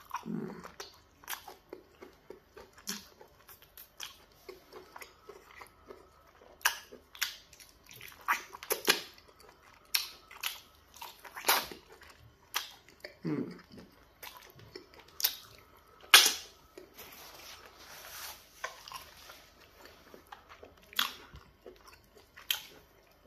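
Close-up eating sounds of biting and chewing stewed turkey in peanut butter soup: irregular wet mouth smacks and clicks, one sharper than the rest about two-thirds of the way through.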